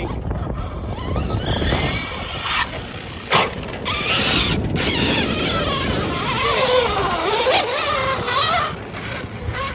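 Losi DBXL-E 2.0 electric RC buggy being driven with a failing drivetrain: the motor's whine rises and falls with the throttle over mechanical grinding and rattling. The driver thinks it is a differential problem, and the fault turns out to be the pinion gear working loose from the spur gear.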